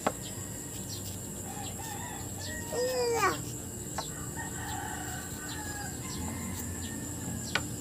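A rooster crowing once, about three seconds in, over a steady outdoor background, with a few sharp clicks from a knife peeling a green mango.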